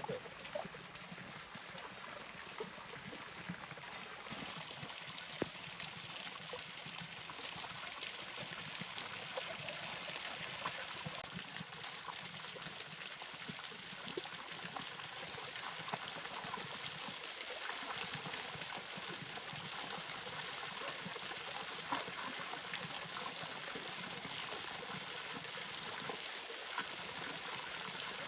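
Steady trickle of running water with faint scattered ticks.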